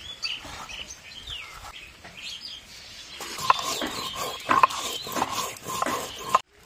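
Birds chirping, then from about three seconds in, rhythmic scraping strokes of a stone grinding block rubbed back and forth over spice seeds on a flat stone slab (shil-nora). The sound cuts off suddenly near the end.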